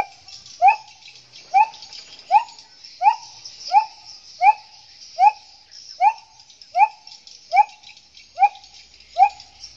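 Gibbon giving its hooting call: a long even series of short, sharply rising whoops, about one every three-quarters of a second. A steady high insect drone runs underneath.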